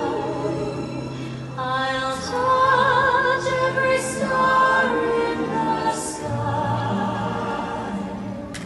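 Orchestral show soundtrack with a sung melody, the voice wavering in vibrato and swelling to its loudest through the middle.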